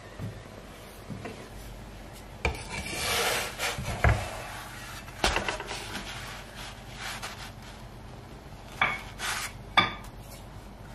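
Dry rubbing and scraping on a wooden board during kitchen handling, with a few light knocks.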